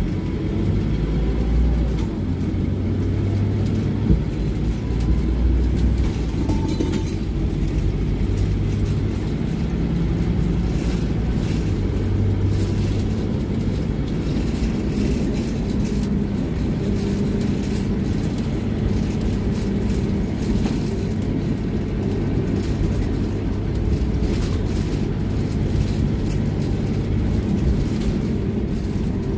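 Scania OmniLink bus heard from inside the passenger saloon while it is moving: a steady low engine and road drone whose note shifts several times as it changes speed. Light rattles and clicks from the interior run over it.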